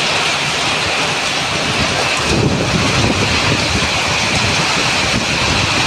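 Heavy rain pouring steadily onto concrete and standing water. A low rumble joins in about two seconds in and carries on under the rain.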